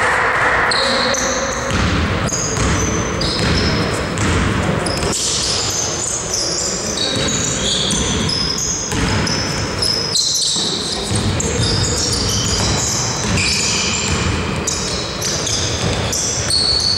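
Basketball game play on an indoor court: sneakers squeak on the floor in many short, high squeals, with the ball bouncing and players calling out, all ringing in the hall.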